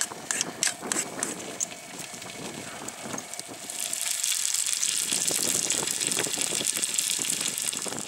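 A utensil clicking and scraping in a metal pot as carrots are mashed. From about four seconds in, eggs and sausages sizzle steadily in a frying pan on the dual-fuel stove.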